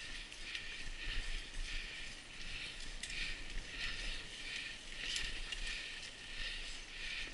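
Mountain bike rolling along a leaf-covered dirt trail: tyre and drivetrain noise with a rhythmic rattle about twice a second over a low rumble.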